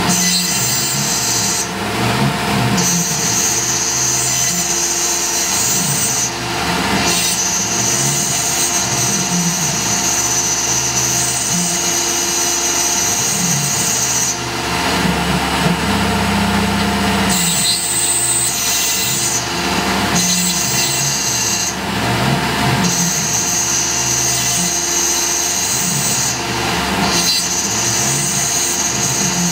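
Tormach PCNC 1100 CNC mill's spindle driving a small end mill through a steel cufflink blank: a steady cutting whine that drops out briefly several times. A lower machine hum joins for about two seconds around the middle.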